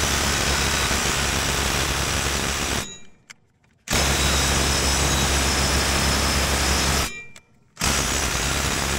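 Cordless DeWalt quarter-inch impact driver hammering on a riding mower's blade bolt in three long bursts of about three seconds each, with short pauses between, trying to break the bolt loose.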